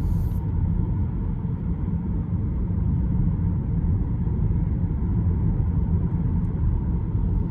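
Steady low road and tyre rumble inside the cabin of a Tesla Model 3 Performance on the move.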